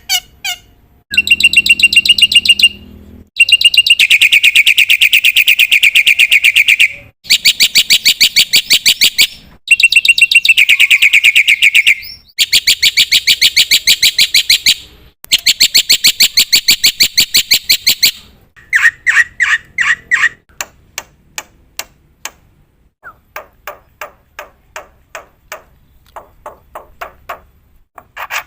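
Black-winged myna (jalak putih) calling: six long runs of rapid repeated harsh notes, each lasting two to four seconds, then spaced single notes from about two-thirds of the way through.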